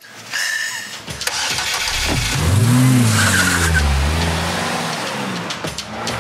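Car engine starting and revving: a low rumble builds, climbs in pitch about two seconds in, then eases back to a steady run.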